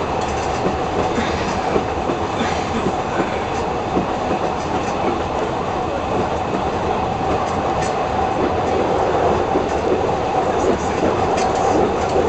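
Diesel railcar running along metre-gauge track, heard from inside the cab: steady engine and wheel noise with a faint steady tone and occasional clicks of the wheels over the rails, growing a little louder near the end.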